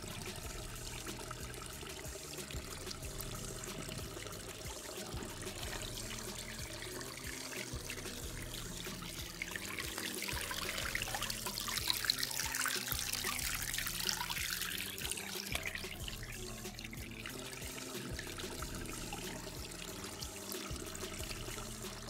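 Shallow stream water trickling and gurgling over rocks, swelling louder around the middle.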